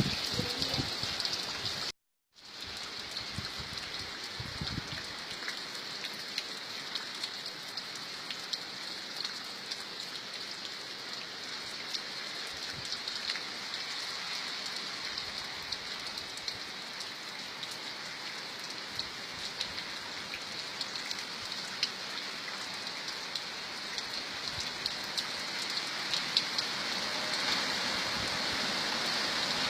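Steady rain falling, an even hiss dotted with many small drop ticks. The sound cuts out completely for a moment about two seconds in.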